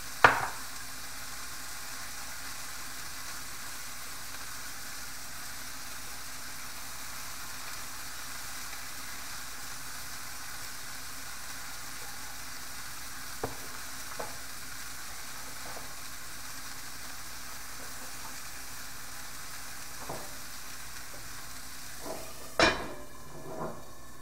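Food sizzling steadily in a cast-iron skillet, with a sharp clack just after the start and a few light ticks. Near the end a loud clatter as a lid is set on the skillet, after which the sizzle is muffled.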